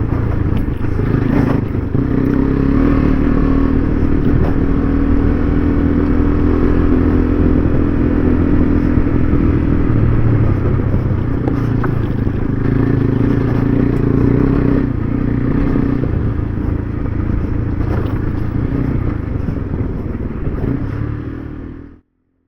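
KTM 390 Adventure's single-cylinder engine running steadily under way on a dirt road, with scattered knocks and clatter. The sound cuts off abruptly near the end.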